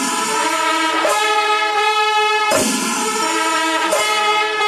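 Kerala temple ensemble music: long held wind-instrument notes over percussion, with a sharp crash about every second and a half.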